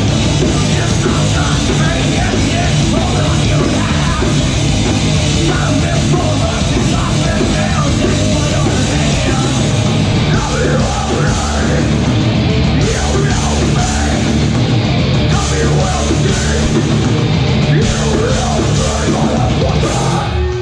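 Metalcore band playing live and loud: distorted electric guitars, bass and drum kit in a dense, unbroken wall of sound.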